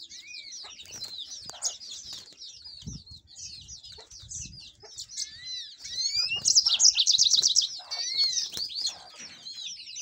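About a dozen caged canaries chirping and twittering together, a constant overlapping chatter of short high whistles, loudest about six and a half seconds in with a fast trill lasting about a second. A few dull flutters of wings against the cage are heard under the song.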